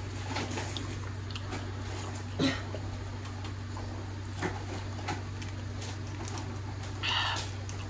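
Quiet room with a steady low electrical hum, small scattered clicks and taps from a ceramic cup being handled and drunk from, a sharper tap about two and a half seconds in, and a short breathy noise near the end.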